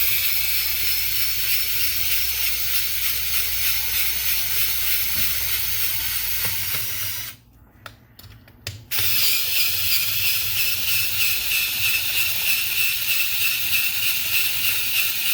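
Cordless drill-driver backing out the doorknob's through-screws: it runs steadily for about seven seconds, stops briefly, then runs again for about six seconds, once for each screw.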